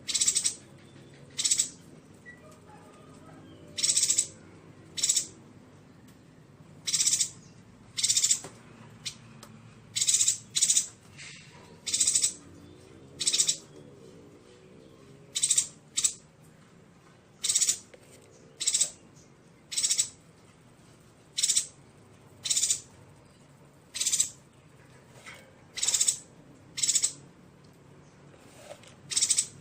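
Yuhina calling: short, sharp, high-pitched calls repeated about once a second at uneven intervals, sometimes two in quick succession.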